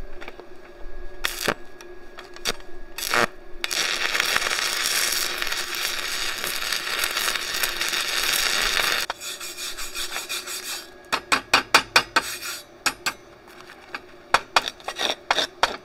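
Stick welder arc burning a 6010 electrode at 100 amps, held very tight as this machine needs for 6010: a few sharp clicks, then a dense steady crackle for about five seconds. Then a wire brush scrubs the fresh bead in quick rasping strokes.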